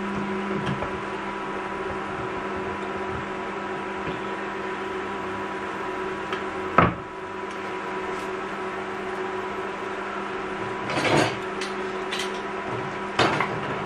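Hand-held tin opener worked on a tin can that it struggles to open, with a sharp metal clack about seven seconds in and rattling, scraping clicks near the end. A steady electric hum from a running kitchen appliance lies underneath.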